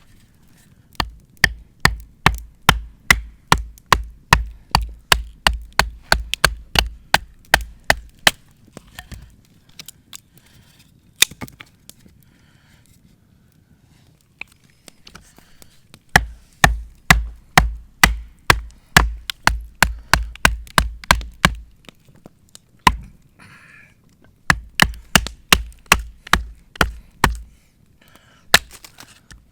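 Firewood being chopped into small pieces, quick repeated strikes about three a second in three runs with short pauses between.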